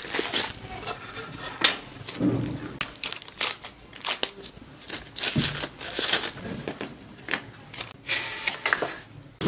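Thin plastic packaging sleeve crinkling and rustling in irregular crackles as a phone case is pulled out of it by gloved hands.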